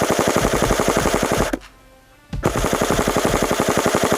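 Airsoft rifle firing full-auto in two long bursts, a rapid, even rattle of shots broken by a pause of under a second near the middle.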